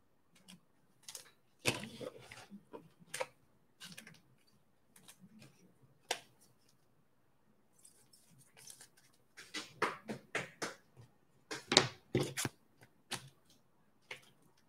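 Foil trading-card packs being torn open and cards being handled: irregular crinkles, clicks and taps, busiest in the second half.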